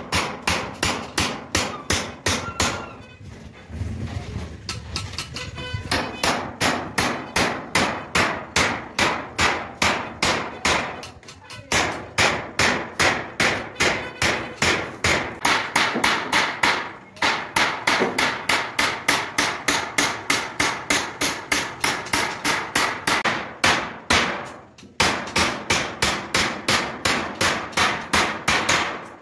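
Small hammer tapping a steel punch into an aluminium sheet, chasing a beaded decorative line for truck art. Quick, even strikes about four a second, in runs broken by a few short pauses.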